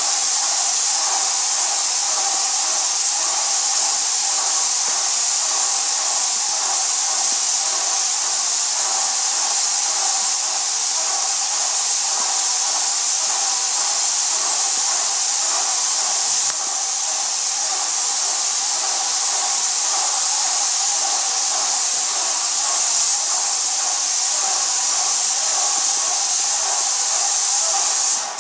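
Airless paint sprayer spraying emulsion paint: a loud, steady high hiss with a steady whine beneath it. It dips slightly partway through and cuts off abruptly at the very end.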